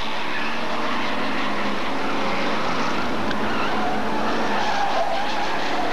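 A pack of Hotstox oval racing cars running round the track together, a steady mix of several engines at once with no single car standing out.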